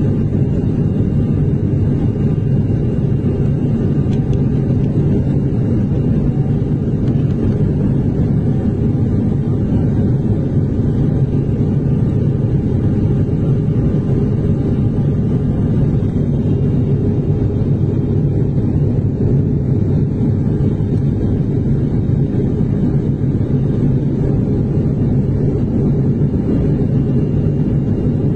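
Airliner cabin noise in flight: a loud, steady low rumble of engines and airflow, unchanging throughout.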